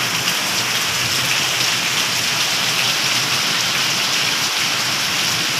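Heavy rain pouring steadily: a dense, even hiss of rain hitting the ground.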